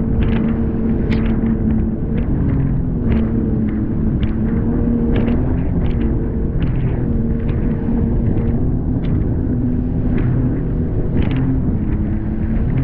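Jet ski engine running hard under way, its pitch shifting a little up and down with the throttle, over a rough rumble of wind and water. The hull slaps irregularly on choppy waves, throwing spray.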